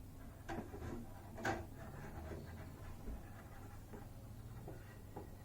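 Faint, sparse clicks and taps of a screwdriver and small parts being handled during a coffee machine repair, with two clearer clicks about half a second and a second and a half in.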